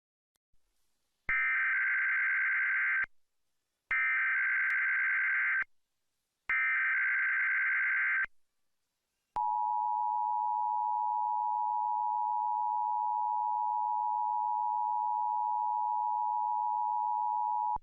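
Emergency Alert System tones for a Required Monthly Test: three bursts of SAME digital header data, each under two seconds with a short gap between. About two-thirds of the way through, the two-tone attention signal (853 and 960 Hz) starts and holds steady for about eight seconds.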